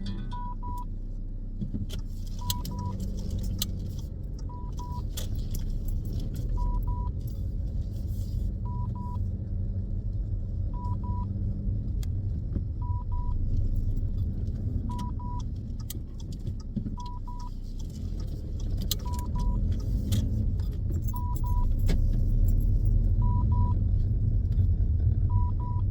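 Dashcam warning beeps, a short double beep about every two seconds, which the driver puts down to there being no SD card in it. Under it runs the car's low rumble.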